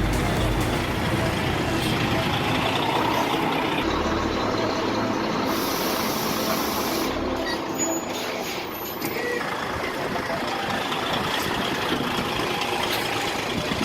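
Heavy haulage trucks running, with a hiss about six seconds in.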